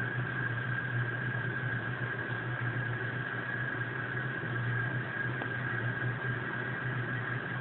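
An elderly cat snoring in her sleep, a low rasp that keeps going with only slight swells in loudness.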